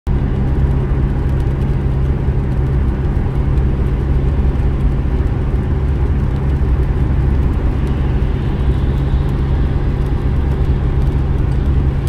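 Steady road noise inside a moving car's cabin: engine and tyres running at highway speed on a wet road.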